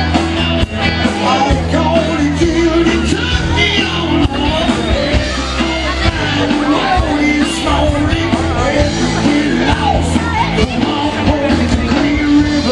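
Rock music with a singing voice, playing loud and steady throughout.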